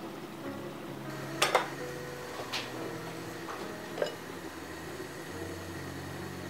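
A few light clinks of kitchenware being handled: two close together about a second and a half in, another about a second later and one near four seconds, over soft background music.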